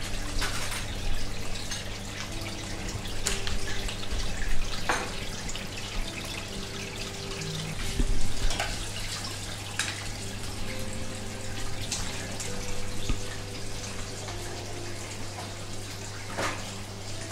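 Aquarium water bubbling and trickling from the aeration, over a steady low hum. A few light knocks sound about five and eight seconds in, and again near the end.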